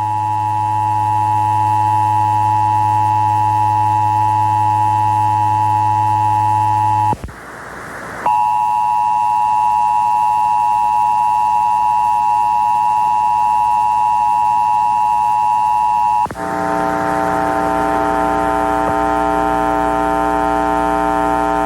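Emergency Alert System two-tone attention signal, the steady 853 Hz and 960 Hz pair, sounding loud and continuous. It breaks off briefly with a hiss about seven seconds in, resumes, and about sixteen seconds in turns rougher and buzzier, with extra lower pitches and hiss mixed in.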